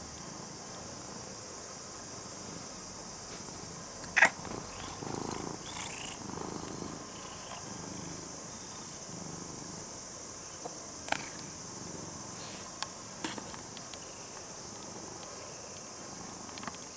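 Orange-and-white domestic cat purring softly. A loud sharp click comes about four seconds in, and a few fainter clicks follow later.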